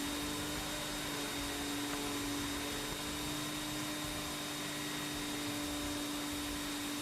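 Central vacuum running steadily with a Riccar power head on carpet: a constant hum over an even hiss.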